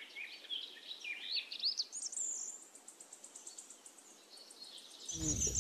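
Tropical forest birds calling: a run of short rising chirps in the first two seconds, then a high, thin, rapidly pulsed trill, over faint forest hiss.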